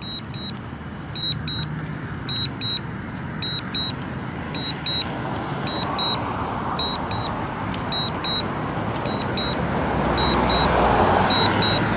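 Drone remote controller giving warning beeps in quick pairs, about once a second. Under it a steady rushing noise swells from about halfway through and is loudest near the end.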